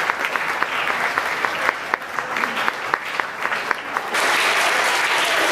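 Audience applauding. At first the claps come through as separate, distinct claps. About four seconds in they swell suddenly into denser, louder applause.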